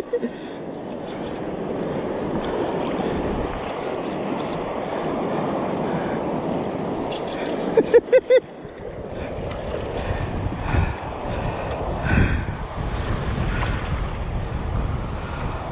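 Surf washing steadily while wind buffets the microphone, the low rumble heavier in the second half. Twice, at the start and about 8 seconds in, comes a quick run of three or four short squeaks.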